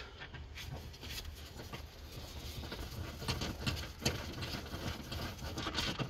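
Faint, irregular clicking and scraping of a ratchet and T30 Torx bit undoing a bolt in plastic interior trim, over a low steady hum.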